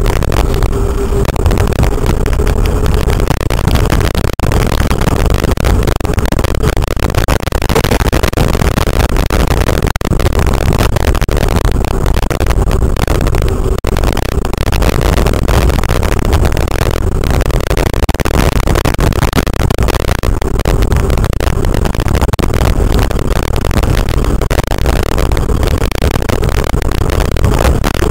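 E-bike with a Crystalyte 5303 hub motor riding at speed on a paved street: loud, steady wind rush and road noise, with a faint whine from the hub motor that comes and goes.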